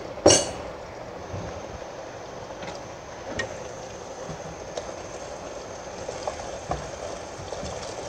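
Beaten eggs frying gently in oil in a nonstick pan, a soft steady sizzle with a few faint ticks, after a brief knock just after the start.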